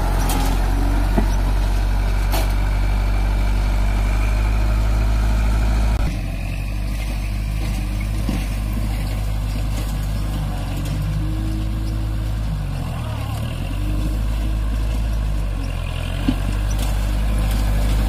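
Kubota MU4501's four-cylinder diesel engine running steadily while pulling and driving a round baler. The sound changes abruptly about six seconds in, and the engine note dips and recovers twice in the second half.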